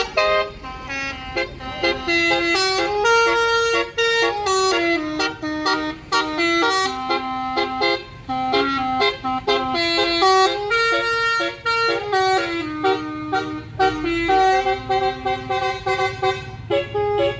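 Basuri musical horn, an Indonesian telolet-style multi-tone horn, playing a tune: a fast run of short, stepped notes that rise and fall and repeat in phrases, with a few brief breaks.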